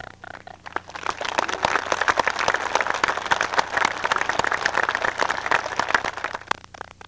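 A large crowd applauding, the clapping swelling about a second in and thinning out near the end before it cuts off abruptly.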